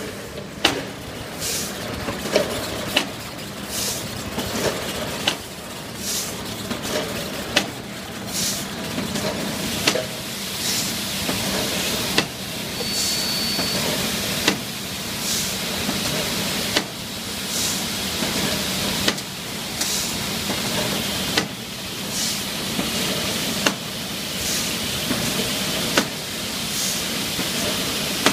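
Jar filling line with a screw feeder and volumetric cup filler running. A steady mechanical din is broken by a sharp clack and a short hiss about every two and a half seconds, one filling cycle per jar, at roughly 25–30 jars a minute.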